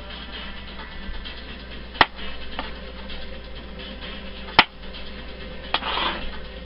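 Kitchen knife cutting through small red potatoes and striking a plastic cutting board: three sharp knocks a few seconds apart, then a brief rustle near the end.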